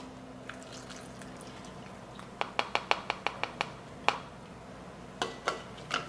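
Light clinking taps of a stainless measuring cup against a plastic funnel and glass mason jars while brine is poured: a quick run of about eight taps in the middle, then a few single taps. Heard faintly and at a distance, through the camera's own microphone rather than a lapel mic.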